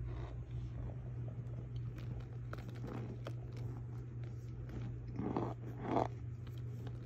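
Cornstarch crunching as it is packed and pressed in the bowl. Faint crackles come first, then two louder crunches near the end, over a steady low hum.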